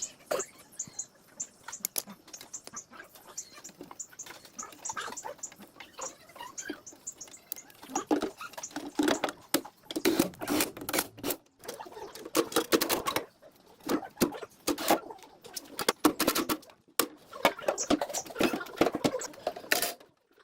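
Irregular small clicks and taps with bouts of scraping and handling noise, typical of hand work on parts; it grows denser and louder about halfway through.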